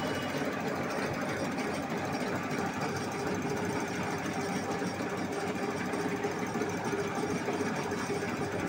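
Diesel injector test bench running steadily, its pump motor driving the Polo common-rail injectors as they fire in a rapid, even mechanical clatter, with a steady hum under it. This is a delivery and back-leakage test of the injectors.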